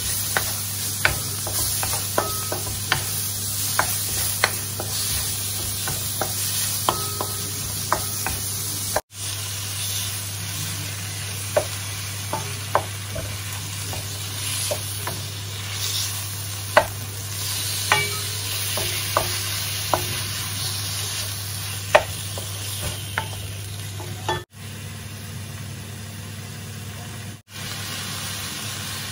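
Sliced onions, and then diced raw chicken, sizzling in a wok with a steady hiss while a wooden spatula stirs them, scraping and knocking against the pan in frequent sharp clicks. A steady low hum runs underneath, and the sound drops out briefly three times.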